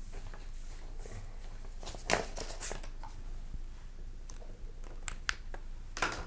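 Quiet room with a steady low electrical hum, broken by a few brief rustles and taps of paper sheets being handled, the loudest about two seconds in and near the end.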